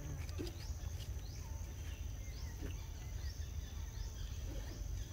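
Forest ambience: a steady high-pitched insect drone over a low steady rumble, with a short chirp rising in pitch repeated about every three-quarters of a second.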